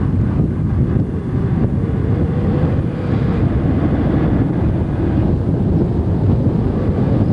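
Steady rumble of a car on the move, road and engine noise heavy in the low end, with wind buffeting the camcorder microphone.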